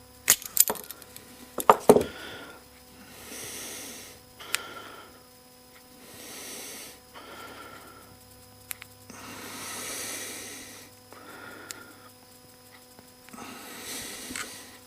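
A few sharp metallic clicks and taps in the first two seconds as pliers squeeze a small steel split ring. After that come slow, audible breaths, about one every two seconds.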